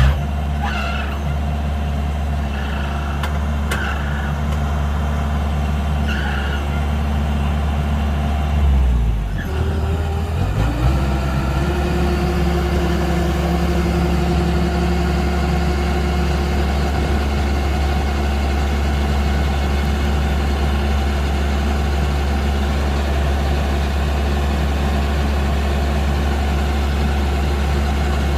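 Kubota DC-105X combine harvester's diesel engine running steadily. Its pitch sags briefly about nine seconds in and recovers, after which a steady whine runs along with it.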